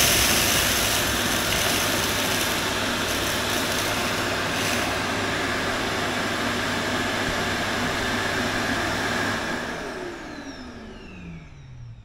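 ECOVACS Deebot T20 Omni vacuum motor running loudly and steadily with a low hum. About ten seconds in it winds down, its whine falling in pitch as the motor spins down.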